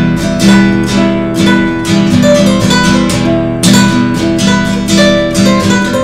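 Nylon-string classical guitar played solo, chords strummed with the right hand over the soundhole in a steady rhythm.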